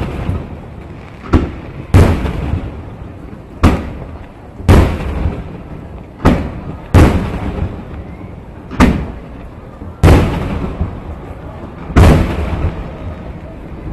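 Aerial firework shells bursting overhead: about ten sharp booms at irregular intervals of one to two seconds, each followed by an echo that dies away over about a second.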